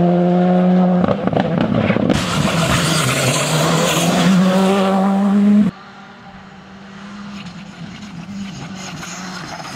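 Rally car engine running at steady high revs, with a loud hissing rush of tyre and road noise for about three seconds from about two seconds in. The level drops suddenly a little before the six-second mark, leaving a quieter engine note.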